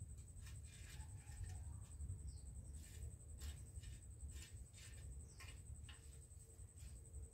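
Faint scraping of a garden hoe drawn through loose, dry soil, in irregular strokes about one to two a second.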